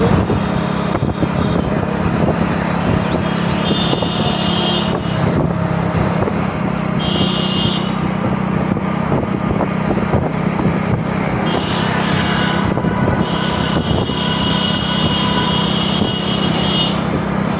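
Road traffic heard from a moving vehicle: a steady low engine hum over continuous road noise. A high steady tone comes and goes several times.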